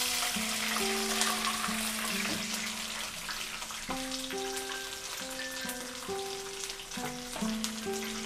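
Water poured into a pan of hot oil with fried green chillies and curry leaves, spitting and sizzling hardest in the first couple of seconds and then settling into a steady sizzle. A slow tune of held notes plays softly under it.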